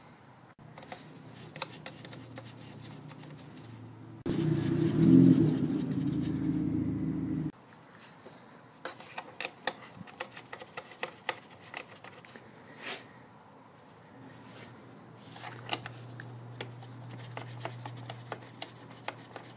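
Scattered light clicks and taps as nuts are threaded by hand onto the mounting points of a BMW's plastic engine cover. About four seconds in, a loud low hum starts abruptly, runs for about three seconds and cuts off. A fainter low hum comes in near the end.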